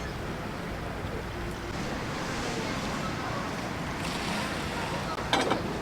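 Steady wind and sea-wave noise at the shore, with wind rumbling on the microphone. A short clatter of a few clicks comes near the end.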